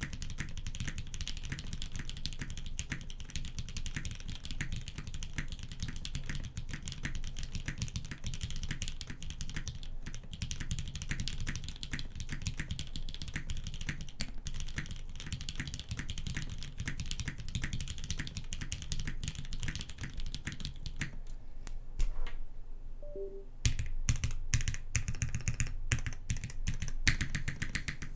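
Fast, continuous typing on a 65% mechanical keyboard with an aluminium plate, Krytox 205g0-lubed Hyperglide black linear switches and GMK keycaps. About 22 seconds in the typing stops with one sharp knock, pauses briefly, then resumes.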